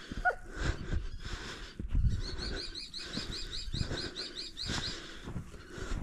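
Footsteps crunching slowly through deep fresh snow, with heavy breathing. In the middle comes a fast series of high, even notes, about five a second, for nearly three seconds.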